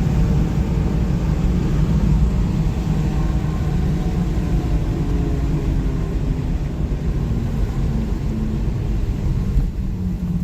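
Engine and road noise inside a large vehicle towing a trailer, heard with a window open: a steady low rumble with an engine hum that wavers in pitch as it drives slowly over a rough road.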